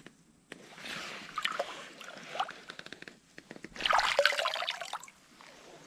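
Water sloshing, trickling and dripping in two stretches, about a second in and again around four seconds in, as a hand reaches into shallow lake water to catch crayfish.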